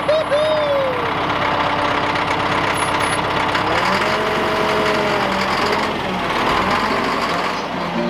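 A Caterpillar motor grader's diesel engine running with a steady, rapid clatter. A whining tone rises and falls near the start and again about four seconds in.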